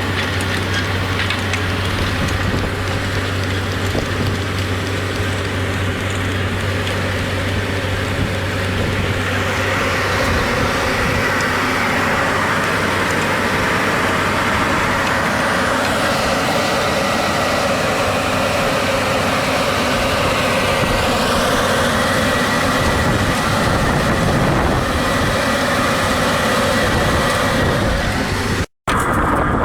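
Tractor engine running steadily under load while working a field, with a brief cut-out near the end.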